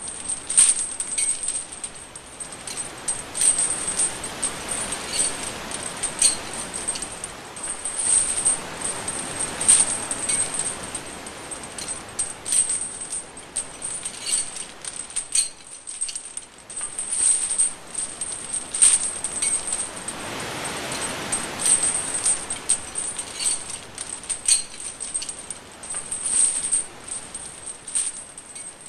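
Metal chains swinging and jangling: a continuous metallic rattle broken by frequent sharp clinks of links knocking together.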